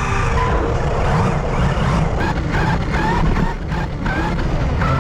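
Hobby-grade electric RC cars driving, their brushless motors giving short rising whines as the throttle is blipped over a heavy rumble of tyres and wind.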